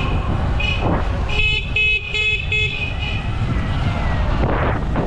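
A vehicle horn beeping in city traffic: one short beep, then four quick beeps about a second and a half in. Under it runs steady wind and road noise from riding an electric dirt bike.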